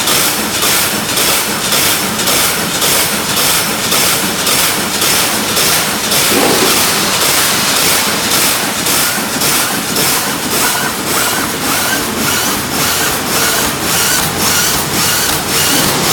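EVG mesh welding line running, a steady loud clatter and hiss with an even beat of about three strokes a second.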